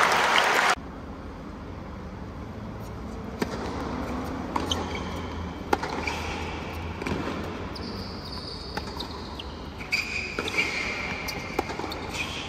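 Tennis ball knocks on a hard court: sharp single pops from ball bounces and racket strikes, spaced a second or more apart, over a low crowd murmur, with a few high squeaks near the end. A loud burst of crowd noise cuts off abruptly about a second in.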